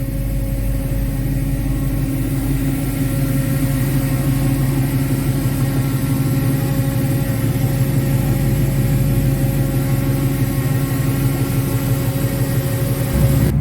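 LS V8 engine and exhaust running at an even, unchanging pitch.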